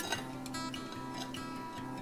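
Background music of picked acoustic guitar, with no singing: a run of plucked notes at an even pace.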